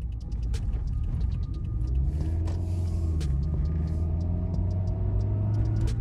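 Car engine and road noise heard from inside the cabin as the car pulls onto the street and accelerates, the engine note rising over the second half. Frequent small clicks and rattles.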